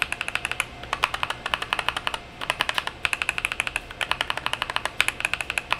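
Rapid typing on a 75% mechanical keyboard: runs of quick key clacks with short pauses between the runs.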